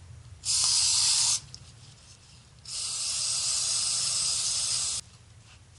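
Aerosol can of carb and choke parts cleaner hissing out through its straw onto a stainless steel oil filter, flushing it clean of metal bits, in two bursts: a short one of about a second, then a longer one of about two seconds.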